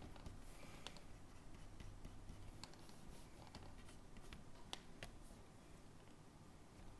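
Faint light scratching and scattered sharp clicks of a stylus on a graphics tablet and computer input during digital painting; the clicks are sharpest about 5 s in.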